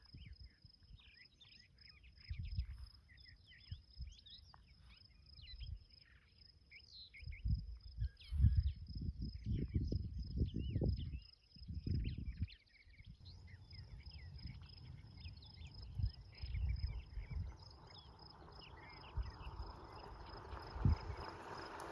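Rural outdoor ambience: an insect trilling on one steady high pitch, with many short bird chirps and intermittent low rumbles. The trill and chirps fade out about halfway through, and a hiss builds over the last several seconds.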